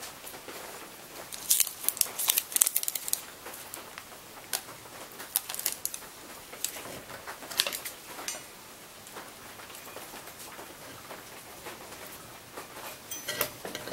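Aluminium foil tape crinkling and crackling as it is pressed and folded over the back end of a steel burner tube to form an air choke. It comes in bursts of sharp crackles, densest a couple of seconds in, with a quieter stretch before a last burst near the end.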